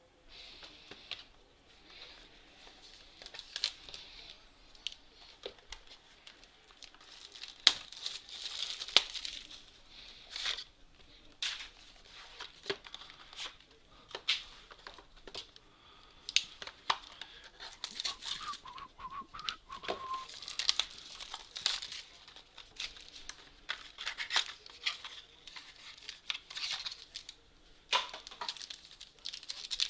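Plastic shrink-wrap and packaging being torn open and crinkled as a box of trading cards is unwrapped, with irregular rustles and sharp clicks from handling the packaging and cards.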